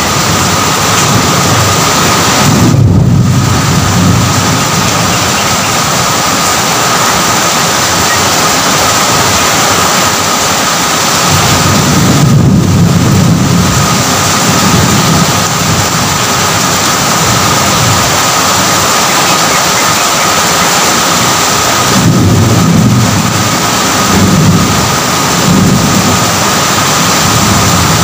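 Heavy, steady rain with low rolling thunder swelling up several times: about three seconds in, around twelve seconds in, and again twice after about twenty-two seconds.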